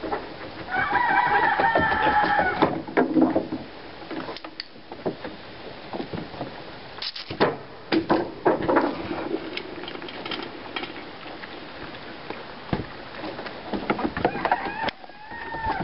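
A pig rooting its snout along a doormat on a wooden deck, with low grunts and snuffling. About a second in, a loud, drawn-out animal call lasts about two seconds, and a shorter call rises and falls near the end.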